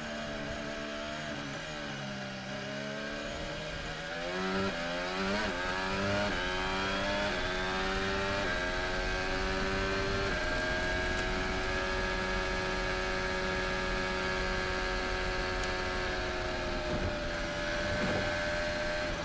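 Onboard sound of a Red Bull-Honda Formula 1 car's 1.6-litre turbocharged V6 hybrid engine. It starts at low revs, then accelerates with a steadily rising pitch and quick upshifts. It settles into a long, steady high-rpm note, which wavers near the end.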